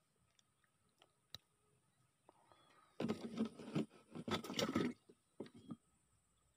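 Close rustling and scraping right at the microphone for about two seconds, starting about three seconds in, with a few lighter rustles just after. A single sharp click comes a little over a second in.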